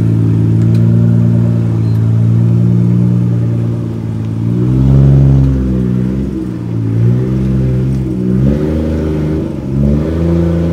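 Nissan R32 Skyline's engine running at a low, steady speed, then a series of short revs rising and falling about once a second as the car is moved slowly into place.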